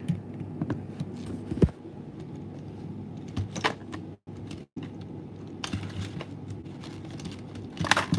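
Phone handling noise: scattered taps and clicks with shirt cloth brushing the microphone, over a steady low hum. The sound drops out briefly twice around the middle.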